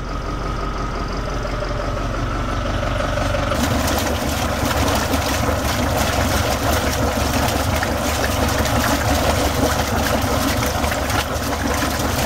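Boat engine running with a steady hum. About three and a half seconds in, this gives way to a louder churning and splashing of water around the sterndrive's lower unit, with the engine still running under it.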